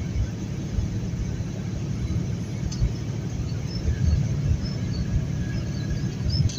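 Steady low rumble of a fully loaded semi-truck cruising at highway speed, engine and road noise together, with a couple of faint clicks.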